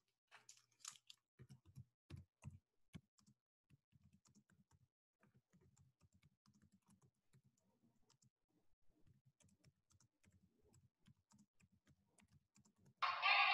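Faint, irregular clicking and tapping of a computer keyboard being typed on, picked up through a video-call microphone. Near the end a sudden loud burst of several steady tones cuts in.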